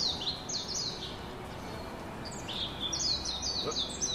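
A songbird singing quick runs of high notes, each one falling in pitch, about four or five a second; the song breaks off about half a second in and starts again about two seconds later.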